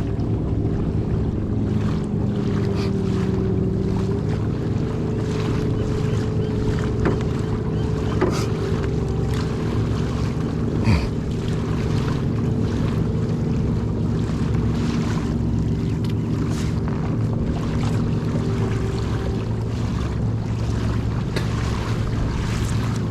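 Boat motor running steadily while under way, its pitch stepping up slightly about four seconds in, with wind and water noise and a couple of short knocks.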